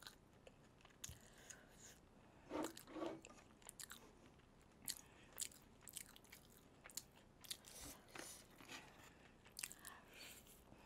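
Crispy fried chicken being pulled apart and bitten close to the microphone: faint, scattered crunches and chewing of the crisp batter.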